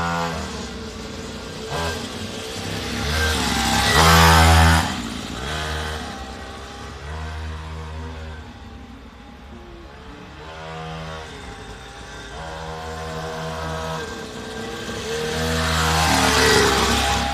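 Small engine of a child's mini dirt bike, revving up and down in repeated throttle bursts as it rides around, loudest as it comes close about four seconds in and again near the end.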